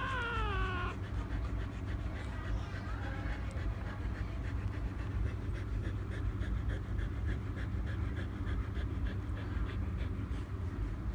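Newborn Husky puppy giving a high whining squeal that wavers and falls, ending about a second in. After it come soft rhythmic suckling sounds from the nursing puppies over a low rumble.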